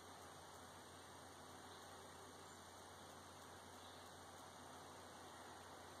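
Near silence: room tone with a steady low hum and a faint even hiss.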